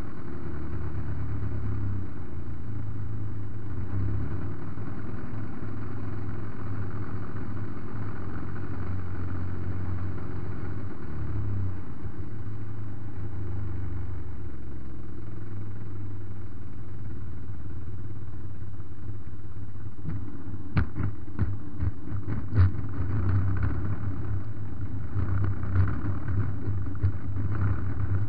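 MVVS 116 twin-cylinder two-stroke gasoline engine of a large RC Piper J-3 Cub running steadily, heard from on board the model. About three-quarters of the way through come a series of knocks and rattles as the plane touches down and rolls over the frozen field.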